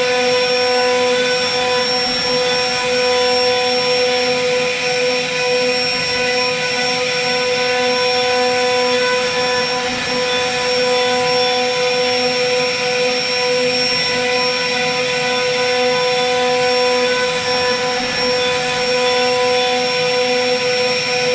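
CNC router spindle running with a steady, high-pitched whine while its carving bit cuts a relief pattern into a wooden panel, over a rough hiss of cutting.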